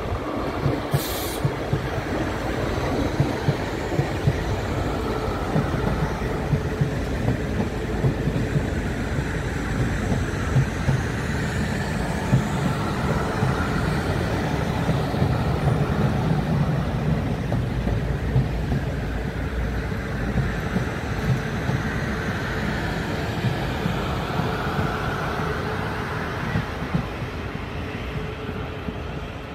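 South Western Railway Desiro electric multiple unit passing slowly at close range. Its wheels click sharply again and again over rail joints and pointwork over a steady running rumble, which is loudest about halfway through. A short hiss about a second in.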